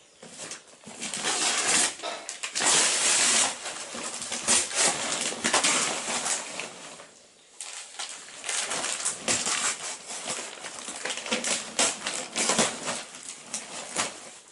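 Gift wrapping paper being ripped off a present and crumpled by hand: irregular bursts of tearing and crinkling, with a short lull about halfway through.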